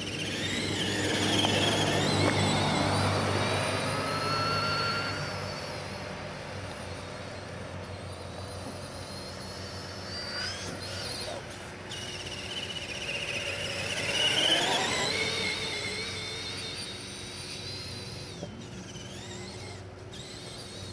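Radio-controlled monster truck's electric motor whining, its pitch climbing and falling as the truck speeds up and slows down, loudest about two seconds in and again near fourteen seconds.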